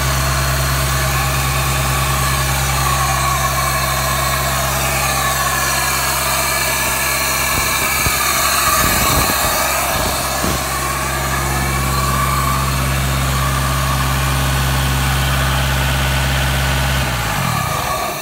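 Kubota diesel engine running steadily at idle, then shutting off near the end, its tone sinking as it winds down to a stop.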